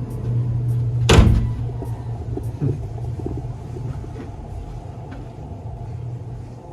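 A steady low hum with a single loud knock about a second in.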